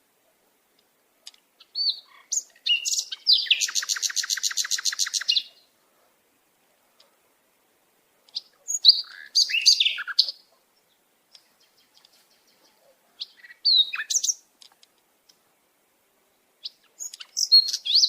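Sparrow chirping in short bursts of high chirps separated by silent pauses. A fast rattling trill lasts about two seconds near the start.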